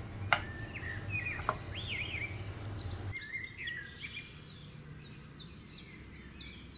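Several birds chirping and singing in quick, high chirps and trills, with two sharp falling whistles in the first second and a half. A low steady hum sits underneath and stops about three seconds in.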